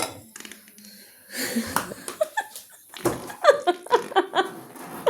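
A person's voice making breathy, wheezy sounds and short laughs.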